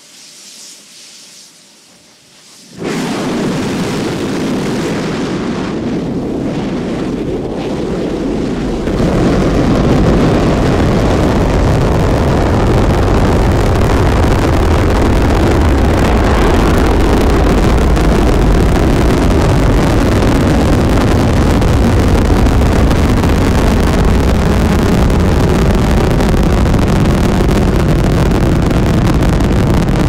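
Space Shuttle Atlantis launching. A sudden loud, deep roar starts about three seconds in as the three main engines ignite. About six seconds later it jumps louder and fuller as the two solid rocket boosters light at liftoff, then holds as a steady, heavy rocket roar.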